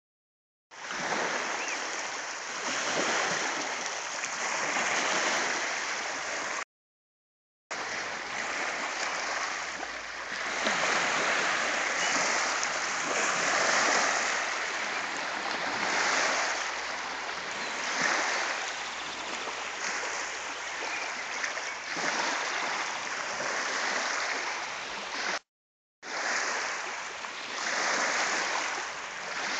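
Small lake waves lapping and washing onto a pebble shore, swelling and easing every couple of seconds. The sound cuts out twice for about a second.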